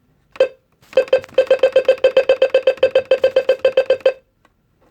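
Electronic beeper on a weather radio: a single short beep, then a fast, even run of short identical beeps, about seven a second, lasting about three seconds.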